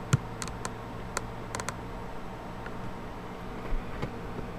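Handling noise: several light clicks and taps in the first two seconds and one more near the end, over a steady low hum.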